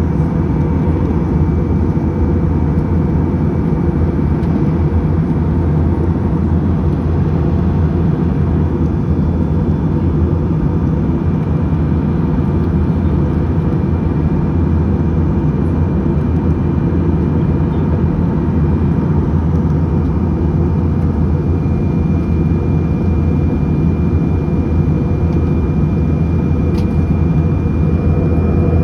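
Steady drone of a UNI Air airliner's engines and airflow in flight, heard from inside the cabin. It is a deep, even roar with a constant hum and a faint thin whine above it.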